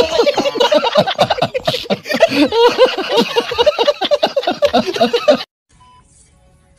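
A group of men laughing loudly and heartily, cut off abruptly about five seconds in. Faint short electronic beeps follow, about one a second.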